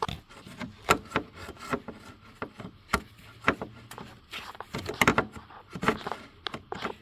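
Plastic retaining clip being worked off by hand: irregular clicks, knocks and scraping of plastic against plastic.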